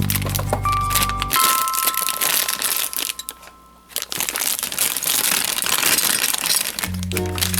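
Background music whose bass drops out for several seconds and returns near the end, over dense crinkling and crackling of packaging being handled while a model plane is unboxed.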